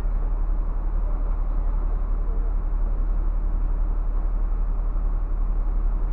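Scania coach's engine idling with the bus standing still, a steady low hum heard from inside the driver's cab.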